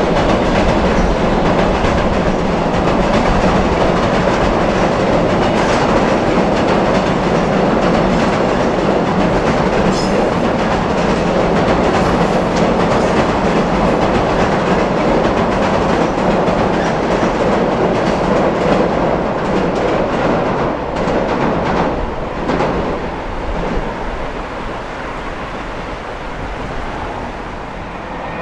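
Loaded container flat wagons of an electric-hauled freight train rolling over a steel plate-girder bridge: a steady rumble with the clickety-clack of the wheels. It grows quieter over the last several seconds.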